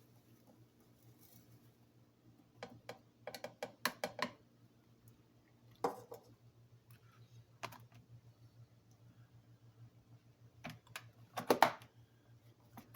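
Scattered clicks and knocks of the coffee grinder's plastic grounds container being handled, a cluster of quick taps, a few single knocks, then another quick cluster near the end.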